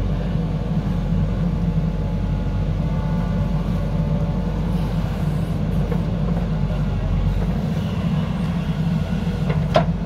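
A JCB backhoe loader's diesel engine runs steadily under working load as the backhoe digs and swings. Its low drone eases a little after about seven and a half seconds, and a single sharp clank comes near the end.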